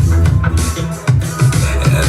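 Pop song with a heavy bass line and a steady drum beat, in a short instrumental gap between sung lines.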